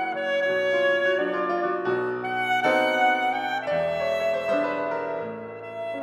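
Alto saxophone playing a melody of held notes over grand piano accompaniment, growing a little softer near the end.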